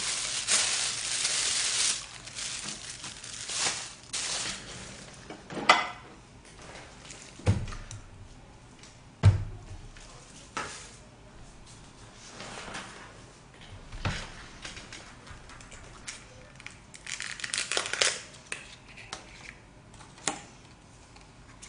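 Plastic bag crinkling for about two seconds as lettuce is pulled out of it, then scattered sharp knocks, thumps and light clatter of dishes on a table.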